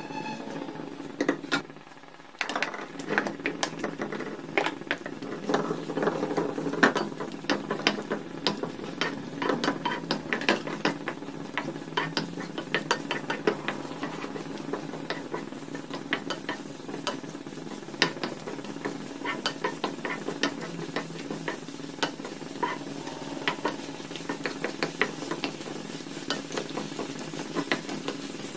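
Banana slices sizzling in hot ghee in a nonstick pan while a wooden spatula stirs and turns them, with frequent sharp taps and scrapes of the spatula against the pan. The sizzle grows louder about two and a half seconds in.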